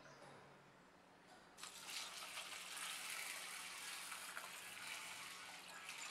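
Water poured from a steel jug into a stainless steel bowl of split lentils and dried red chillies, a steady splashing pour that starts about a second and a half in.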